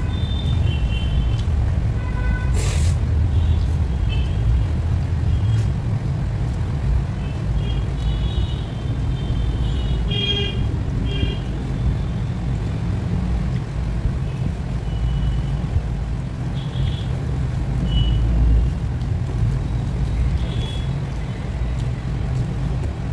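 A steady low rumble of background noise, with short high chirps here and there and one sharp click about three seconds in.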